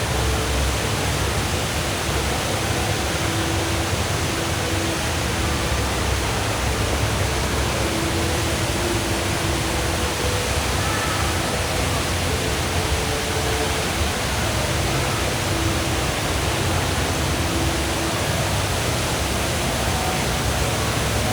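The Rain Vortex, a tall indoor waterfall, pouring down in a steady, even rush of falling water.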